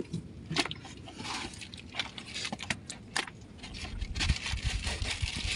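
Wet fish being handled and dropped into a styrofoam cool box: scattered clicks and scrapes of fish against fish and against the box walls. A low rumble builds from about four seconds in.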